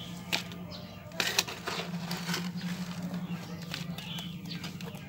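Hands scooping a soil and manure mix into small plastic pots: scattered rustling and scraping, with a few sharp knocks, the loudest about a second and a half in, over a steady low hum.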